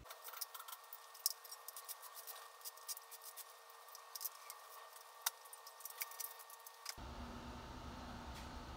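Faint scattered clicks and clinks of hands and small tools working over an LS V8, unclipping and unfastening parts to pull off the truck intake manifold. From about seven seconds in there is a steady faint shop hum instead.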